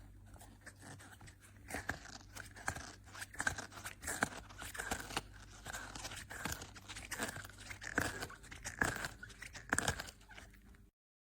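A dog chewing and biting a natural-rubber squeaky ball: an uneven run of crunching, gnawing bites. It cuts off abruptly near the end.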